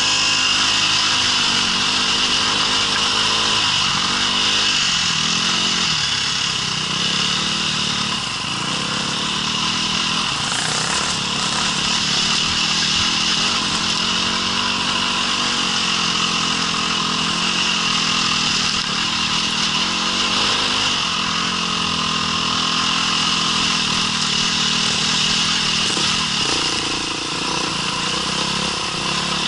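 Off-road vehicle engine running under changing throttle, its pitch rising and falling, over a steady high hiss.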